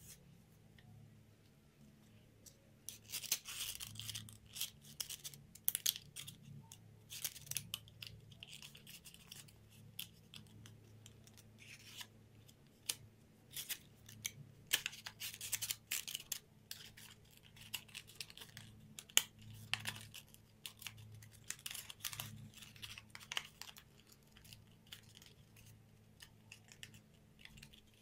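Paper rustling and scraping under the fingers as it is folded, creased and bent into a box, in irregular bursts, over a faint steady low hum.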